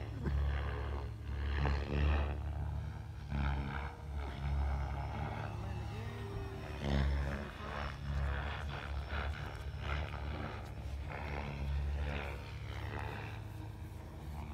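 Wind buffeting the microphone in irregular gusts, over the faint running of a distant RC model plane's electric motor and propeller.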